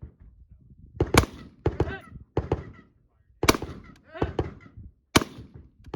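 Rifle shots at a tactical rifle match: three loud single shots roughly two seconds apart, with fainter sharp reports in between.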